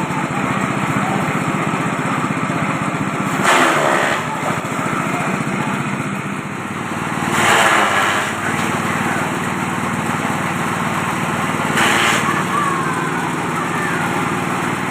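Multi-purpose chopper machine (type JG 125) running steadily on its small engine, with three louder rushing bursts about four seconds apart.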